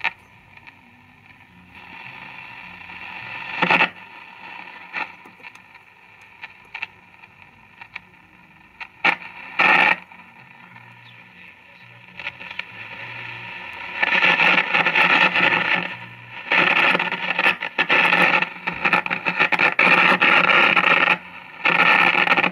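1954 CBS five-tube radio's speaker putting out static with irregular crackles and pops as the tuning shaft is worked. Several sharp cracks come early on, and the noise grows louder and denser about two-thirds of the way through. The crackling is the sign of a failing mica capacitor inside one of the RF transformer cans, which the owner at first took for a bad contact.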